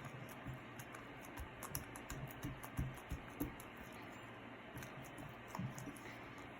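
Slime being handled and pressed, making a run of faint, irregular small clicks and pops, busiest in the first half.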